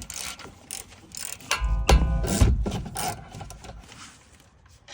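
Ratchet wrench with a 17 mm socket clicking as the brake caliper's 17 mm bolts are turned out. The clicking is loudest and fastest in the middle and fades away near the end.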